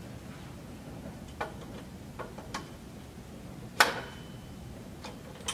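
Metal swing-frame tubes clicking and knocking against each other as one tube is slid into another, a few separate ticks with one sharp clack about two-thirds of the way through that rings briefly.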